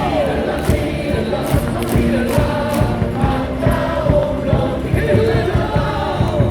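Baseball stadium crowd singing a team cheer song along with loud amplified music over a steady beat.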